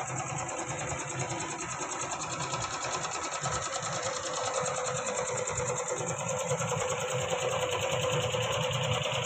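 Workshop piston air compressor running steadily, with a rapid, even mechanical rhythm that grows a little louder toward the end.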